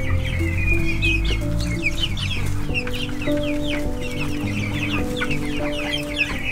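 A flock of young chickens, nearly eight weeks old, peeping: many short, high, falling peeps overlapping throughout. Steady low tones of background music sit underneath.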